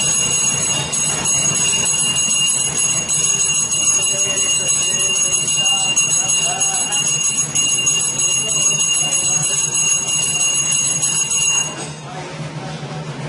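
Brass hand bell (ghanta) rung continuously during aarti worship, a steady metallic ringing that stops abruptly about twelve seconds in when the bell is put down.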